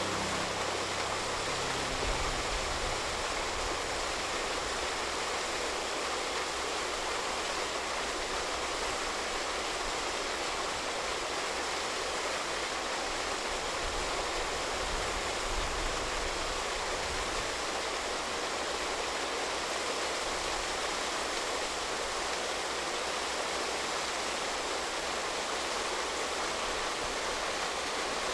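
Water gushing steadily from a pump's discharge hose into the canal: the cofferdam worksite being pumped dry.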